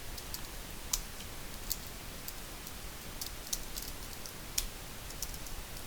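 Computer keyboard keys being typed in short, irregular strokes, a scattering of separate sharp clicks with pauses between them, over a faint steady hiss.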